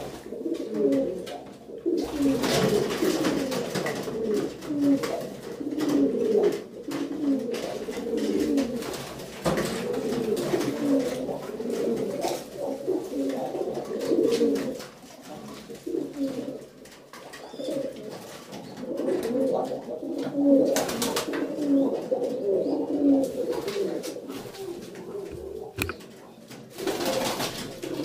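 A flock of domestic pigeons cooing, many calls overlapping without a break. Bursts of rustling noise come a couple of seconds in, about two-thirds of the way through and near the end.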